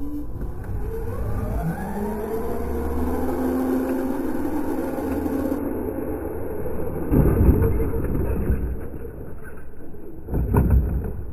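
Arrma Granite 4x4 BLX RC truck's brushless electric motor whining, its pitch rising over the first two seconds as the truck accelerates and then holding steady. Two heavy thuds break in, about seven seconds in and again near the end, as the truck crashes and tumbles.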